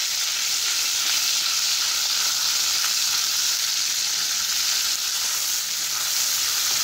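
Chili sauce and soy sauce sizzling in hot oil with fried chili flakes in a nonstick kadai, stirred with a silicone spatula: a steady frying hiss.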